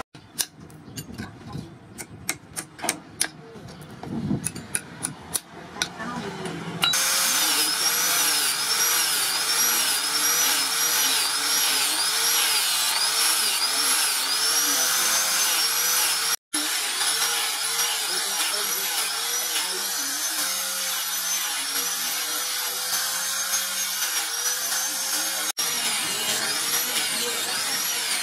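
Light hammer taps, a string of quick strikes, peening the pins of a wooden knife handle. About seven seconds in, an angle grinder fitted with a sanding pad starts and runs steadily while it sands the wooden handle; its whine dips and recovers again and again as it is pressed onto the wood.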